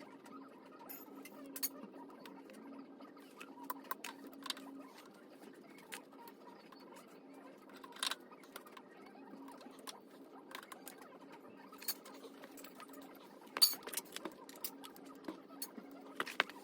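Scattered light clicks and taps over a faint hum that comes and goes, with the sharpest click about two-thirds of the way through.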